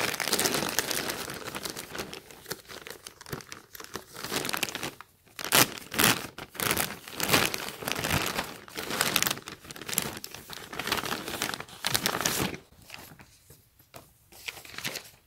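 Plastic poly mailer crinkling as hands handle it and rip it open along its edge in several tearing strokes, with a quieter lull near the end.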